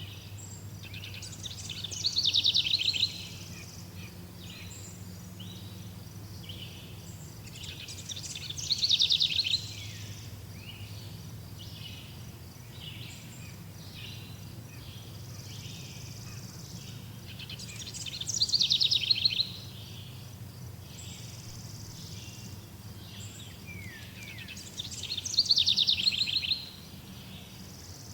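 A songbird singing the same loud, fast trilled song four times, each phrase about a second and a half long and dropping in pitch, with a pause of several seconds between phrases. Softer short calls from other birds and a low steady hum carry on underneath.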